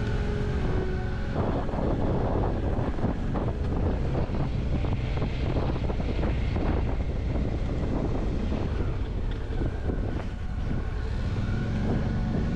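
Wind rushing and buffeting over the microphone on a moving BMW R1150RT motorcycle, with the bike's boxer-twin engine running underneath.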